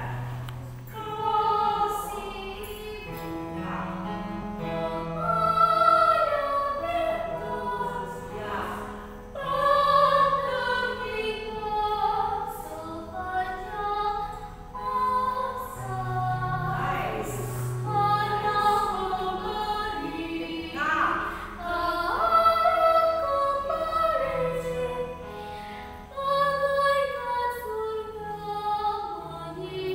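A female voice singing a slow melody in long held notes, accompanied by an electronic keyboard playing sustained low notes and chords.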